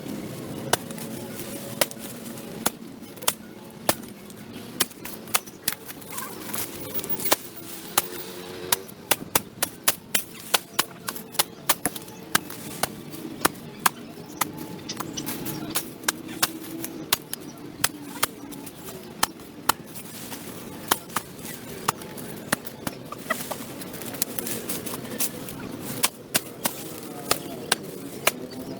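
Sharp, irregular chopping strikes of a hand tool, sometimes several a second, typical of cutting back overgrowth along a sidewalk edge.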